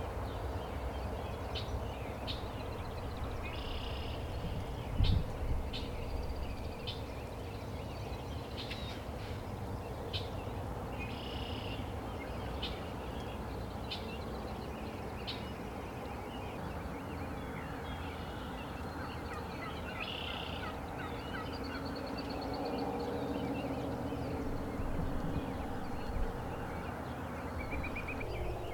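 Wild turkey gobbling, a rapid rattling call, among short high songbird chirps over steady outdoor background noise.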